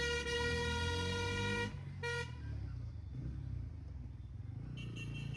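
A vehicle horn gives one long honk of about a second and a half, then a short toot, over a low engine rumble.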